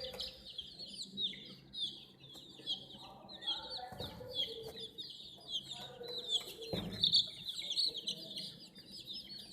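A brood of baby chicks cheeping continuously in rapid, high-pitched chirps, with a few lower calls mixed in. A faint knock about four seconds in and a louder thump about seven seconds in.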